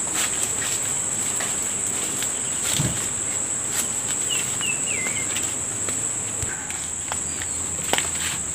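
Steady, high-pitched drone of insects, with the scattered crunch and rustle of footsteps on dry leaves and debris along a path, and a few brief chirps near the middle.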